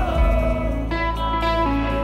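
Live rock band playing loudly through a large concert PA, heard from the audience: held electric guitar notes over a heavy bass low end, with the notes changing about a second in.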